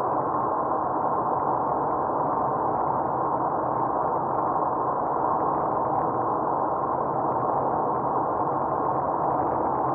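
Steady rush of tyre and road noise inside a car cruising along a highway.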